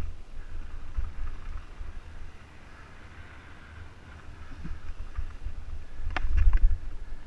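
Wind buffeting a helmet-mounted camera's microphone while a mountain bike rolls down rocky singletrack and slickrock. A quick cluster of sharp clattering knocks about six seconds in, the loudest moment, as the bike rattles over rock.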